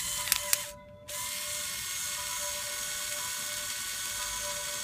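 Small electric motor running a Lego Technic crane's plastic gear train with a steady whir. It stops briefly a little under a second in, after two sharp clicks, then starts again and runs on.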